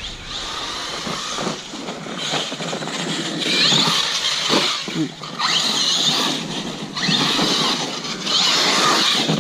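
Arrma Kraton 6S RC truck's brushless motor and drivetrain whining in about five bursts as it accelerates and brakes, some of the whines rising in pitch. Mixed in is the drivetrain noise the owner keeps hearing, which he suspects comes from the diff and its ring and pinion.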